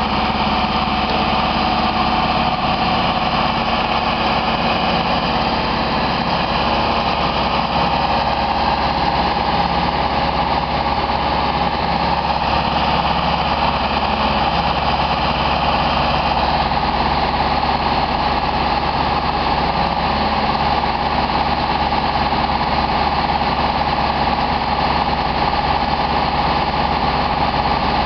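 Genie S-80 telescopic boom lift's engine running steadily while the boom is lowered and swung, with a steady high tone over the engine sound.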